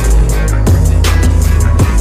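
Electronic outro music with a heavy, steady bass and sharp, regularly repeating drum hits.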